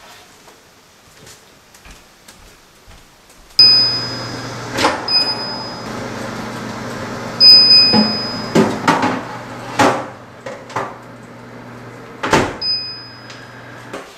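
Built-in electric oven running with a steady low hum, its control panel giving short high beeps several times, while a metal baking tray clunks and scrapes against the oven rack and door. The hum starts suddenly after a few seconds and stops shortly before the end.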